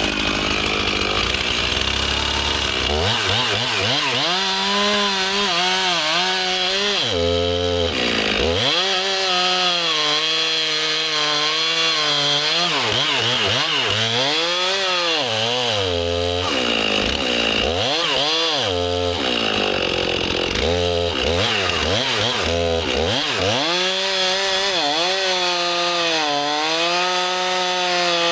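Gas chainsaw cutting into a large standing tree, most likely the back cut that fells it. The engine runs loud and steady, its pitch sagging under load and climbing back again and again as the chain bites and eases.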